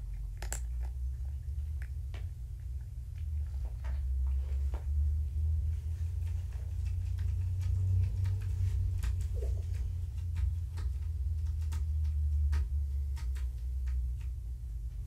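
A steady low rumble that swells for several seconds in the middle, with scattered light clicks and taps from kittens' paws and claws as they climb over and walk around a man lying on the floor.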